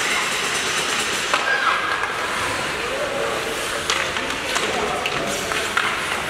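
Ice hockey game sounds: skate blades scraping the ice and several sharp clicks of sticks and puck, with spectators' voices in the background.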